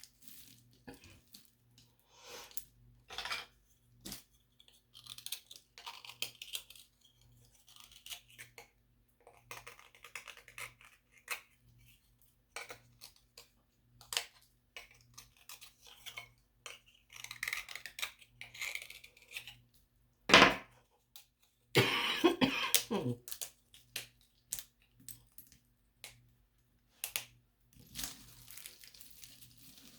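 Small objects handled close to the microphone for ASMR: irregular taps, clicks and clinks with short stretches of scratchy crinkling, and one sharp knock about two-thirds of the way through.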